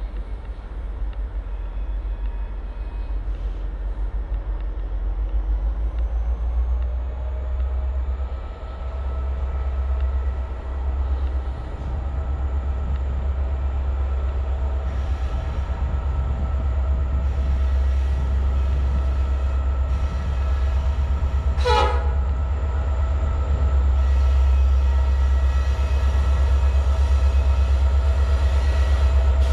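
Slow freight train passing on the Kanawha River Railroad: a steady low rumble that grows louder, with faint steady tones over it. About two-thirds of the way in there is a brief falling squeal.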